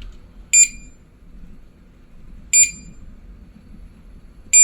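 Inmarsat-C terminal sounding its distress-test alarm: three short, high beeps two seconds apart, repeating steadily while the distress buttons are in test mode.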